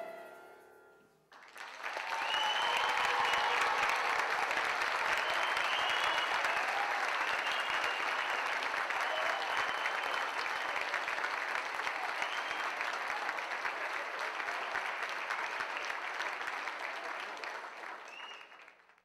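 The last sung chord of a large children's choir dies away. After a moment's silence an audience starts applauding, with scattered cheers. The applause runs on steadily and fades out near the end.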